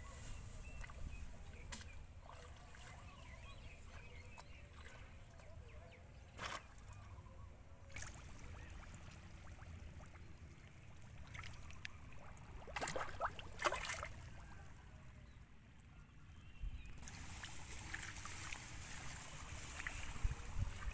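Faint sloshing and splashing of shallow water in a flooded rice paddy, with a few sharper splashes about 13 to 14 seconds in, over a low steady rumble.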